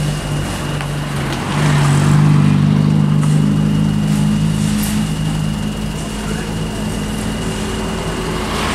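Dump truck's engine running steadily, growing louder about a second and a half in and easing off a little after about five seconds.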